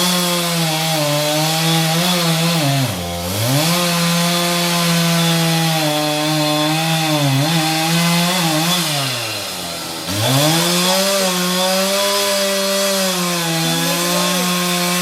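Chainsaw running at high revs while cutting a tree. Its engine pitch drops sharply and climbs back twice, about three seconds in and again about ten seconds in.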